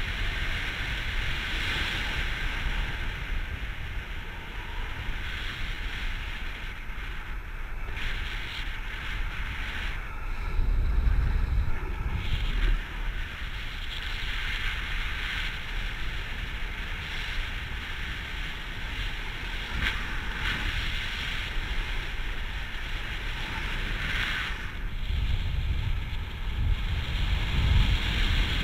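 Wind rushing over the microphone of a paraglider pilot's camera in flight: a steady hiss with a gusty low rumble, buffeting harder about ten seconds in and again near the end.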